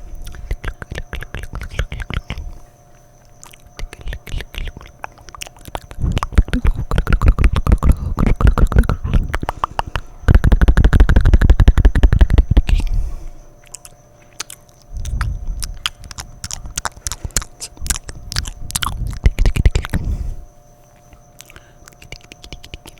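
Close-up wet mouth sounds: rapid clicking and smacking of tongue and lips, made in bursts of a few seconds with short pauses, loudest in the middle.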